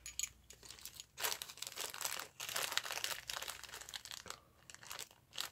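Clear zip-top plastic bag crinkling in bouts as it is handled and pulled open.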